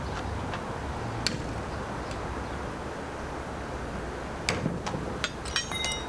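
Sharp metallic clicks and clinks from hand tools and steel bolts as a brake caliper is unbolted: a few light clicks, then a quick cluster of clinks with brief ringing near the end.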